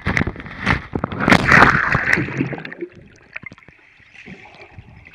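Water splashing and rushing hard over a handheld action camera as a water-slide rider plunges into the pool. About three seconds in it turns muffled and much quieter as the camera goes underwater.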